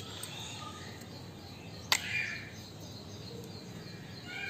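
Birds chirping over a steady outdoor hiss, with one sharp click about two seconds in.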